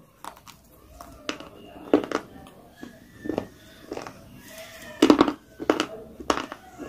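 Close-miked eating sounds: a person chewing a grey chalk-like piece, with a string of sharp crunches and wet mouth clicks, the densest cluster about five seconds in.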